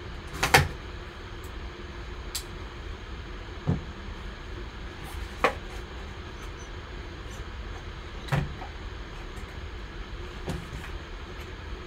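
Cardboard trading-card box being handled and opened: about five short knocks and taps as the box is set down and its sleeve and lid come off, the loudest about half a second in, over a steady low hum.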